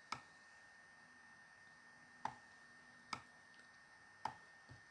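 Four sharp computer mouse clicks, a second or two apart, over faint room tone.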